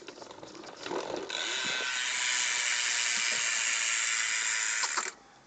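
G-Sport Ratchet freewheel hub on a BMX rear wheel buzzing as the wheel is spun, the pawls clicking so fast they merge into one steady, really loud ratchet buzz. It starts about a second in and cuts off suddenly near the end.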